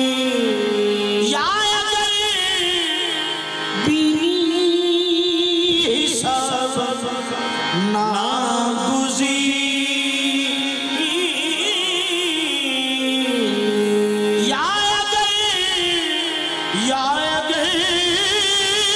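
Qawwali music: voices hold long notes and slide between them, with new phrases entering several times over steady accompanying tones.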